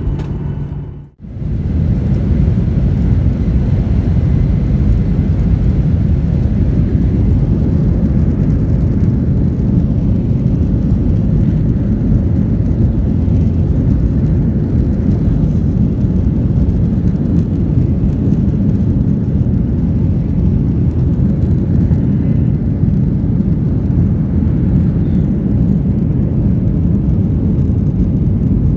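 Steady, loud cabin noise of a Boeing 737-800 on takeoff: CFM56 engines at high thrust and rushing air, heard from inside the cabin. It begins after a short drop in sound about a second in.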